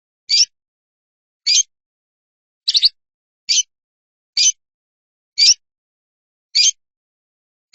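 A bird's short, high chip call repeated about once a second with silence between. Near three seconds in it comes as a quick double note.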